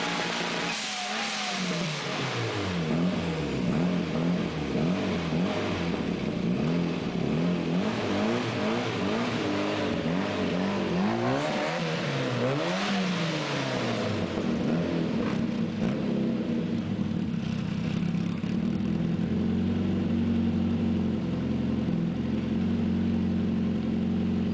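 A modified classic Mini's engine revving up and down several times, then settling to a steady idle for roughly the last third.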